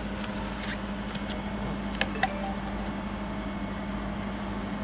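Steady hum of a running stand-type jewelry laser welding machine, with two faint clicks about two seconds in.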